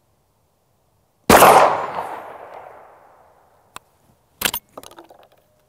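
A single 12-gauge shot from a Greener GP Martini-action single-shot shotgun, a loud blast about a second in that echoes and fades over a second and a half. A few sharp metallic clicks follow near the end as the Martini action is opened.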